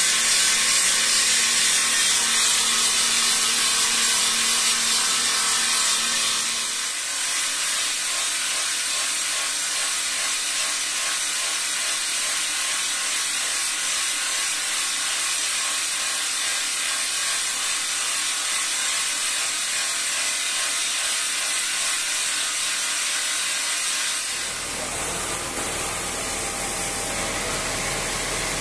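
Marble baluster-shaping machine at work: water-cooled circular blades grinding into the turning stone, a steady hissing grind. Its character changes abruptly twice, about 7 seconds in and again about 24 seconds in.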